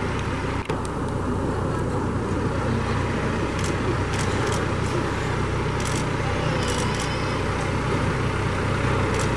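John Deere utility tractor's diesel engine running steadily at low speed while pulling a trailer, with a few light clicks in the middle.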